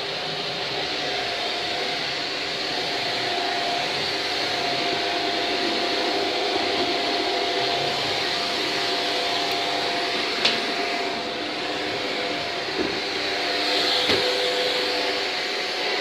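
Shark Duo Clean lift-away upright vacuum cleaner running steadily on a laminate floor in its hard-floor setting: a constant motor whine and rush of air. A few sharp clicks sound in the second half as the head is pushed around.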